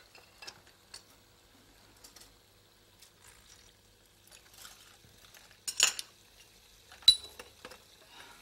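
Porcelain teacups and a teaspoon clinking and clicking lightly. About two-thirds of the way through comes a short, louder noisy sound, then a sharp, ringing clink of porcelain about a second later.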